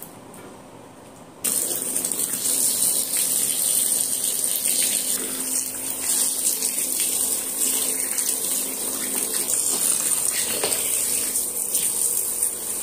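Water gushing into a plastic tub full of soaking white clothes, starting suddenly about a second and a half in and running on steadily.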